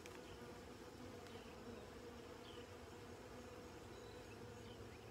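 Honey bees buzzing faintly around an opened hive and a frame of bees held up for inspection: a steady, even hum.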